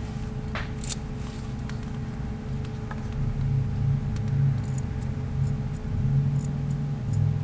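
Steady low rumble with a faint constant hum, over which come a few small, light metallic clicks from the miniature pistol model's slide release lever being pushed down and springing back up.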